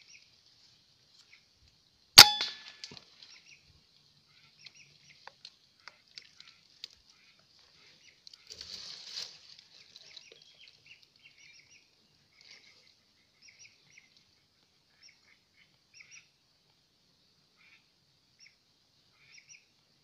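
A single air rifle shot about two seconds in: a sharp crack with a brief metallic ring. A short scuffle of noise follows about nine seconds in, over a steady faint high buzz with scattered chirps.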